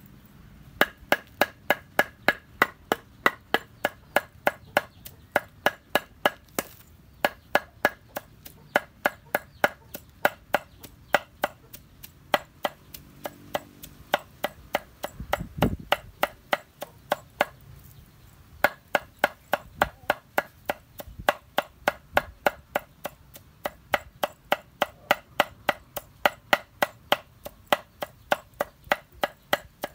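A knife chopping vegetables on a cutting board with quick, even strokes, about three a second, paused briefly a few times. A single dull low thump comes about halfway through.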